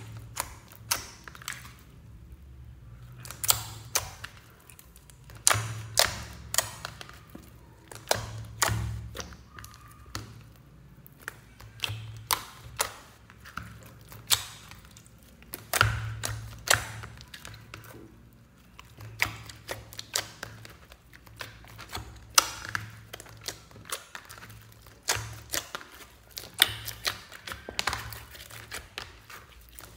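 Hands squishing and kneading a large mass of glittery clear slime mixed with other slimes and clay in a plastic tub: a steady run of irregular wet clicks and pops, with now and then a heavier soft thud as the slime is pressed or folded.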